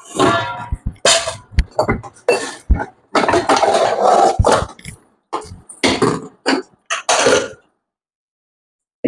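Irregular clanking and scraping of metal vessels and a serving utensil as food is dished out, in uneven bursts with a brief ringing clink near the start.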